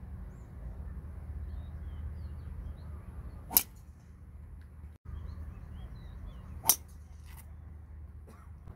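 Two driver tee shots, about three seconds apart: each a single sharp crack of the clubhead striking the golf ball, over a low steady outdoor rumble.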